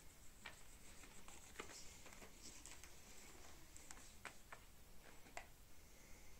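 Near silence with faint, scattered light taps and scratches, about a dozen over several seconds: kittens pawing at a long green leaf that is dragged across a woven rug.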